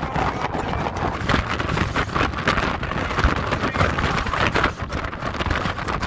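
Storm-force wind buffeting a smartphone's microphone: a loud, gusty rush of noise that rises and falls constantly.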